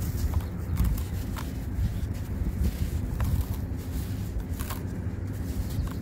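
Dry sand crumbling, with scattered soft crackles and ticks over a steady low rumble.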